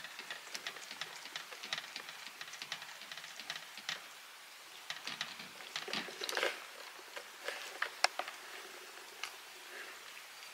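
Domestic cat licking and chewing a treat off a small ceramic plate: quick, irregular wet clicks of tongue and teeth, busiest about six seconds in, with one sharp click about eight seconds in.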